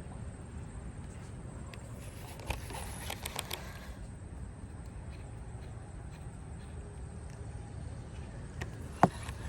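Outdoor ambience with a steady low rumble of wind on the microphone, a few faint clicks about two to three and a half seconds in, and one sharp click near the end.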